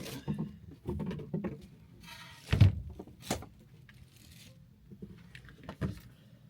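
Handling noises from a portable mini refrigerator being unpacked: scattered light knocks and brief rustles, with one louder thump about two and a half seconds in.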